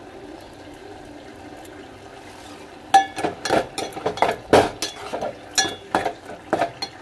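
A pot of greens bubbling on a gas burner. From about three seconds in, a metal spoon stirs the pot, clinking and scraping against its side in quick irregular knocks.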